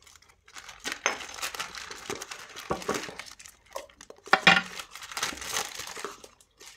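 Paper wrapper of an ice-cream cone being crinkled and torn off, with a spoon clicking against a plastic ice-cream tub. One louder knock about four seconds in.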